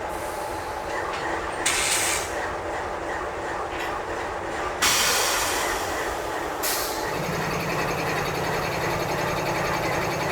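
Double-stack intermodal well cars rolling past, a steady rumble of steel wheels on rail with two brief bursts of high hiss. A low steady hum joins about seven seconds in.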